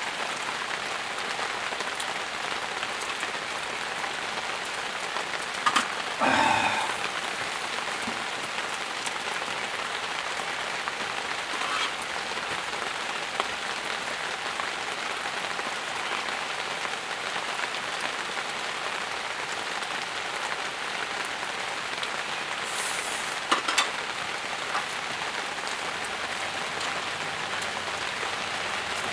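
Steady rain falling. A few brief, louder knocks stand out about six seconds in and again near 24 seconds.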